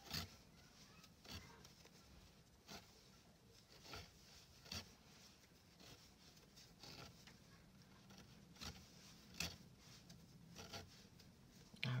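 Faint scratchy rubbing of a crochet hook drawing yarn through stitches, with soft ticks about every second or so against near silence.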